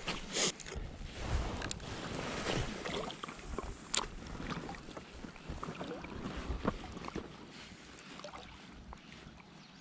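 Water lapping and splashing against a float tube. A few light clicks and knocks come from the rod and spinning reel as the lure is cast and retrieved, the sharpest about four seconds in.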